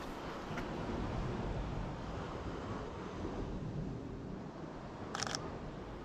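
Steady wind buffeting the microphone outdoors, a low rumbling noise, with a brief cluster of sharp clicks about five seconds in.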